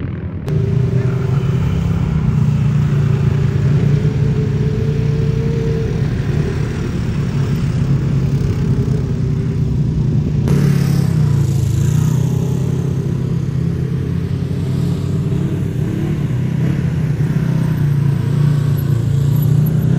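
A vehicle's engine running steadily under way, a constant low hum with road noise, with abrupt shifts about half a second in and again about ten seconds in.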